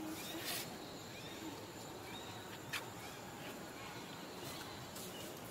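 Quiet outdoor background hiss with a few faint, short high chirps scattered through it. A single sharp click comes about halfway through.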